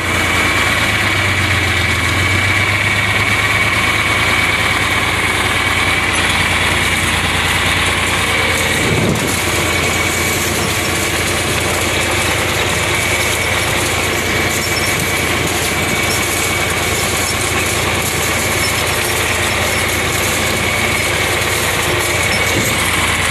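Tractor diesel engine running steadily, with a low drone and a thin steady whine over it.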